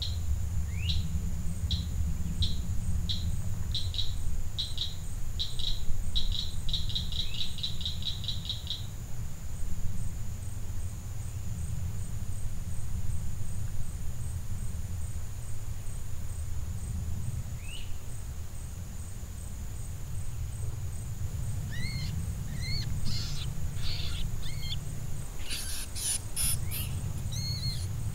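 Outdoor bird and insect ambience: a bird repeats a high note faster and faster over the first nine seconds, a steady high insect drone runs underneath, and more chirps and a few sharp clicks come near the end, over a low rumble.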